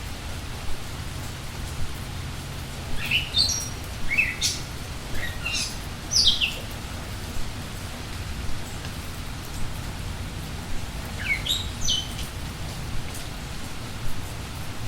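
Steady rainfall with birds chirping through it: a run of short, sharp chirps a few seconds in, and another brief group later.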